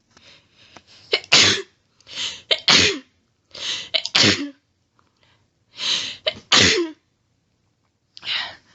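A person sneezing four times in quick succession in an allergy sneezing fit, each sneeze led in by a sharp breath, with another build-up breath starting near the end.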